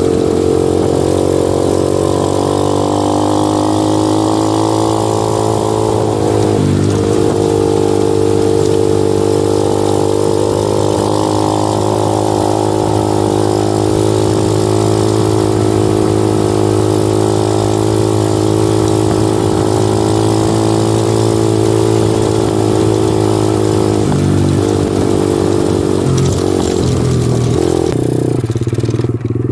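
Small 125cc engine running steadily while being ridden along a dirt road. Its pitch breaks briefly about six seconds in and drops for a couple of seconds after about 24 seconds.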